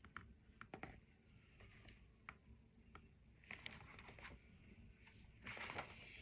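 Near silence with faint scattered clicks and a soft rustle near the end: a picture book being handled, its paper pages turned.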